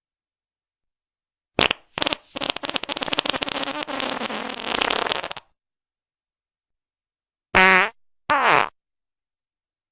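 Fart sound effects, one after another: a short fart, then a long sputtering, rapidly fluttering one lasting about three seconds, then after a pause two short pitched toots, the second falling in pitch.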